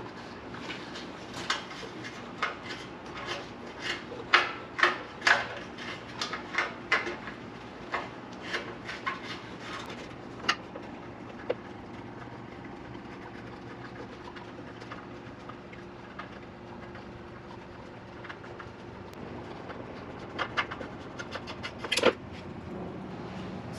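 Stubby screwdriver being worked by hand on the screws of a small engine's cover: irregular light clicks and scrapes of metal on metal, dense for the first ten seconds, then a lull, then a few more near the end.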